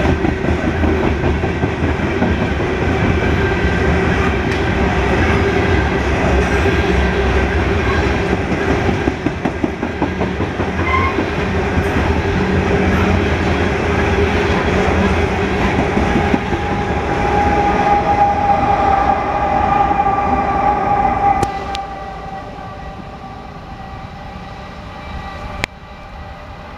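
Coal hopper cars of a freight train rolling past close by: a loud, steady rumble with wheel clatter over the rail joints and steady tones over it. About 21 seconds in the sound drops suddenly to a quieter, distant train, a Norfolk Southern diesel locomotive approaching.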